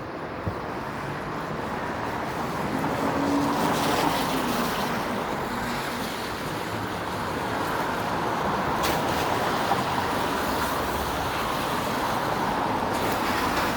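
Street traffic on a wet road: passing cars with a steady hiss of tyres on wet pavement, swelling as vehicles go by about three seconds in and again near the middle.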